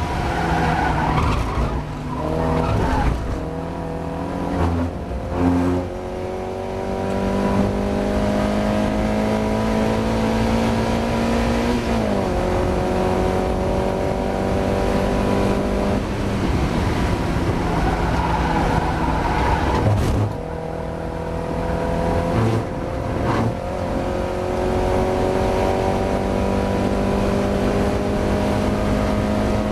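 Mazda MX-5's four-cylinder engine at racing speed, pitch climbing steadily through the gears. It shifts up about twelve seconds in, drops sharply about twenty seconds in as the car brakes, blips through quick downshifts, then pulls hard again.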